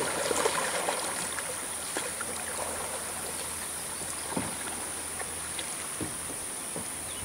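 Kayak paddles dipping and splashing in slow river water, a faint stroke every second or two, over steady outdoor ambience with a constant high-pitched buzz.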